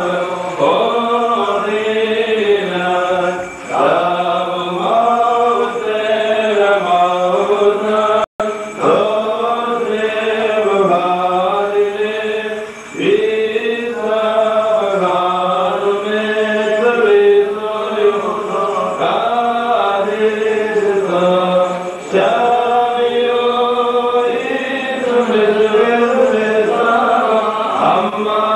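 Holy Qurbana liturgical chant sung in long melodic phrases with short breaks between them, over a steady low held note. The sound cuts out for an instant about eight seconds in.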